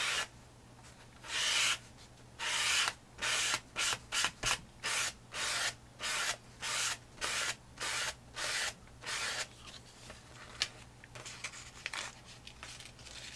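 A plastic gift card scraping craft paint across a book page: a quick run of rasping strokes, two or three a second, turning to fainter, scattered scratches after about nine seconds.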